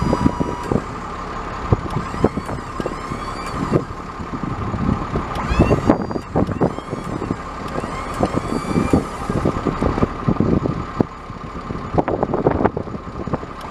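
Truck machinery running with a steady high whine, irregular clanks and knocks, and short squeaks.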